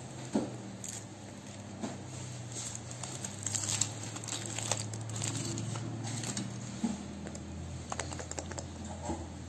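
Thin foil wrapper crinkling and tearing as it is peeled off a chocolate egg: a run of irregular crackles and sharp clicks, busiest in the middle and thinning out near the end, over a faint low hum.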